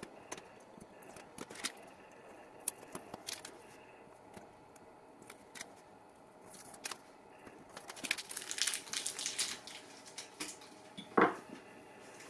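A pick tool clicking and scratching against an adhesive vinyl stencil on a painted wood sign as small pieces are lifted and peeled away, with crinkling from the peeled vinyl, busiest about eight seconds in. A little after eleven seconds there is a single loud knock.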